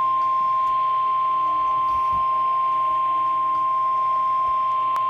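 NOAA Weather Radio warning alarm tone: a single steady 1050 Hz tone, signalling that a weather warning broadcast is about to follow.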